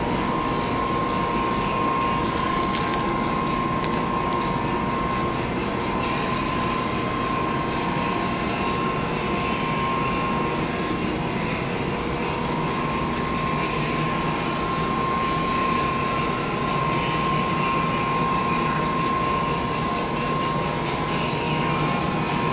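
Shop air handler running: a steady, loud mechanical drone with a constant whine over it.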